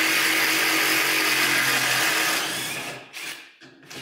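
Handheld power drill running steadily with a motor whine, driving bolts home, then winding down; two short bursts follow near the end.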